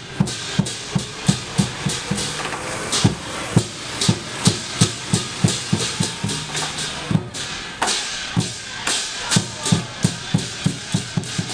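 Chinese lion dance drum beating a steady, driving rhythm of about three strokes a second, with crashes of cymbals on many of the beats.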